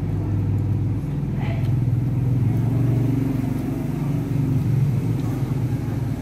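A motor running with a steady low rumble.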